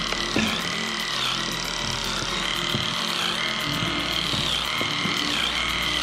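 Electric animal clippers buzzing while trimming a cow's tail hair, a steady high whine that dips briefly now and then as the blades bite.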